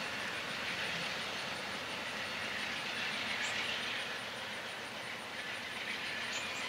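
Amtrak passenger train rolling away along the track, a steady noise of wheels on rails from its departing cars.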